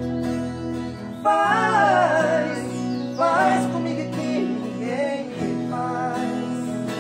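Acoustic guitars playing with a man's voice singing long, drawn-out phrases that come in about a second in, the first falling in pitch, followed by shorter sung phrases.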